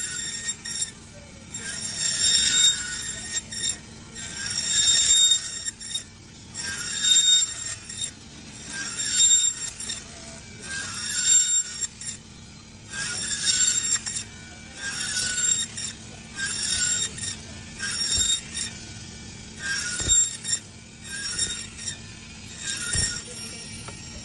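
Band saw cutting frozen fish into steaks: the blade gives a high, ringing whine with each pass through the frozen fish, about a dozen slices at first about every two seconds, then quicker in the second half. The saw's motor hums steadily underneath.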